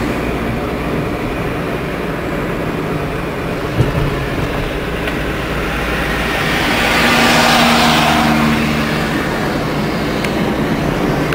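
Steady road and engine noise of a moving car, heard from inside the cabin. A single sharp knock comes about four seconds in, and past the middle a louder rush of noise swells and fades over a couple of seconds.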